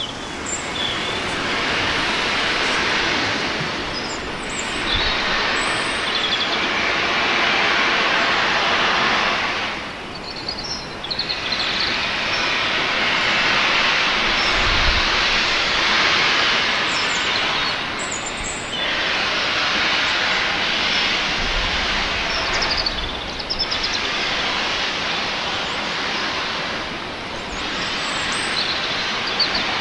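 Steam locomotive letting off steam: a loud, steady hiss that runs for several seconds at a time, dipping briefly every few seconds.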